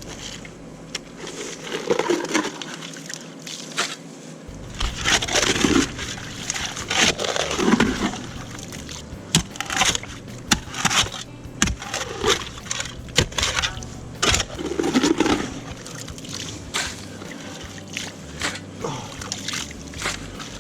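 Digging by hand in waterlogged ground: a digging tool scraping and chopping into wet mud, with squelching water, in irregular strokes and sharp knocks.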